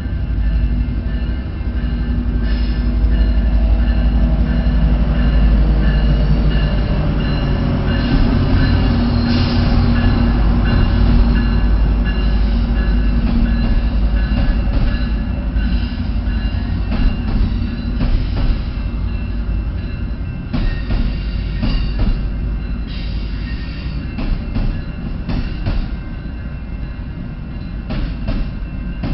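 Diesel-hauled passenger train moving past: a steady engine drone with a slight shift in pitch, then a long run of sharp wheel clicks over rail joints in the second half as the level eases.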